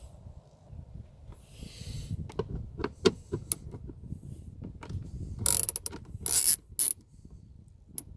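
Hand ratchet with a 10 mm metric socket clicking as it turns door-panel bolts, in uneven runs of sharp clicks with a dense, louder run of clicks about five and a half to seven seconds in.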